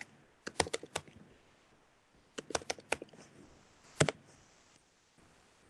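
Computer keyboard keys tapped in three short bursts: about four quick keystrokes just after the start, another four or five about two and a half seconds in, and a single sharper one at about four seconds.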